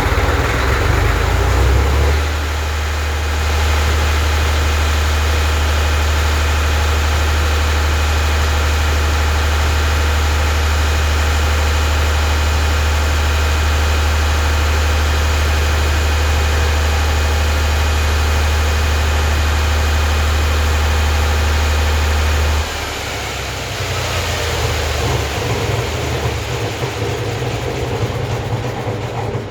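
Bauscher generator's engine running just after starting, settling to a steady speed about two seconds in and holding an even, loud drone. About 23 seconds in the note drops and turns rougher and less even, then dies away at the end.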